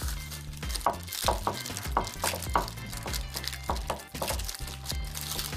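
Background music: held bass notes under short ringing notes, about three a second.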